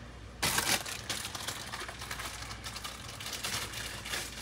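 Beef stew sizzling and crackling in a hot cast iron pot, the sizzle jumping up sharply about half a second in.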